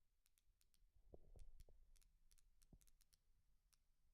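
Faint, irregular crackle of sharp high-pitched ticks, several a second, as a knob on an Ableton Push 2 that is MIDI-mapped in User Mode is turned. This is the unwanted noise fault, the ticks heard in place of silence. A few soft low thumps come about a second in and again near three seconds.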